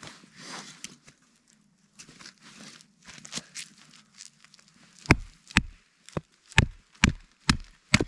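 Batoning firewood with a custom scandi-grind bushcraft knife: about seven sharp knocks of the baton on the knife's spine, a little under half a second apart, in the second half. Before them, quieter crackling and rustling as the wood is handled.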